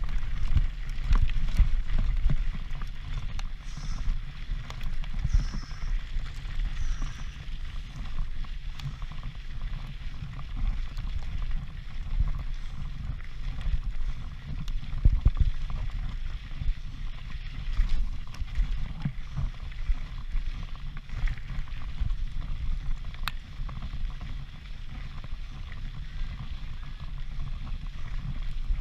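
Mountain bike descending fast on rough ground. Wind rumbles steadily on the action-camera microphone over constant rattling and clattering of the bike and tyres on rocks, with a few short high squeaks between about four and seven seconds in.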